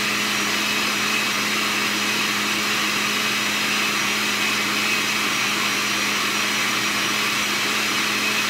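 Countertop blender running steadily at one speed, its motor giving an even hum under a constant whirr.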